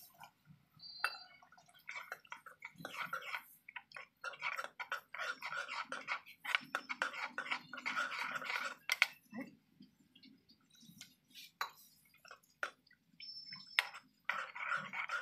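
A metal ladle stirring thick onion gravy in a large metal kadhai: irregular scraping and clinking against the pan with wet squelching of the sauce, in uneven strokes with short pauses.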